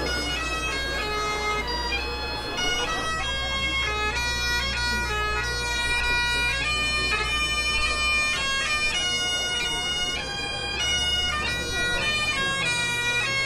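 Bagpipes playing a tune of quick, short notes over steady drones.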